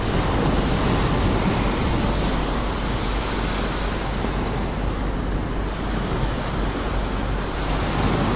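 Ocean surf washing on the beach, mixed with wind on the microphone: a steady rush of noise with no distinct events.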